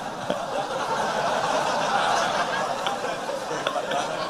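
Audience laughing and chattering at a joke, a steady murmur of many voices.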